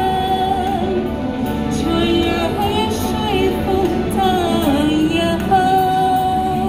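Woman singing into a microphone over a backing track, holding a long note at the start and another near the end.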